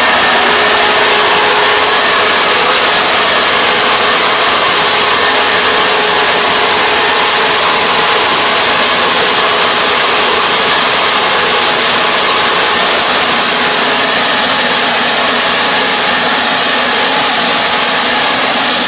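Combine harvester running steadily at working speed: an even, loud machine noise with a few faint steady tones, holding unchanged throughout.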